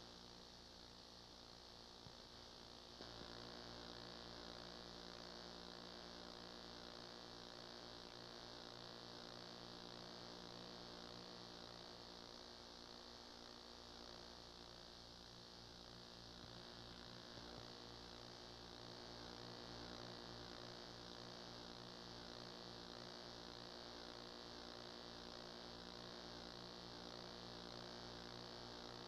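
Near silence: a faint, steady electrical hum with its overtones under a constant hiss, with no game sound.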